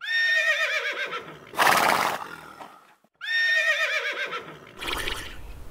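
A horse whinnying twice: the same wavering, falling whinny is heard at the start and again about three seconds in, each followed by a breathy snort.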